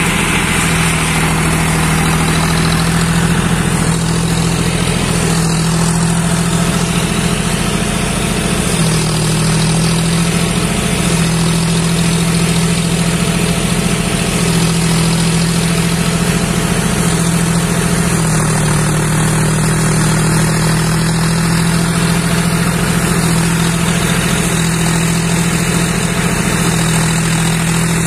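John Deere tractor's diesel engine running steadily under load, driving a tractor-powered rice thresher as sheaves are fed into its drum, a constant loud machine hum with a noisy rushing layer on top.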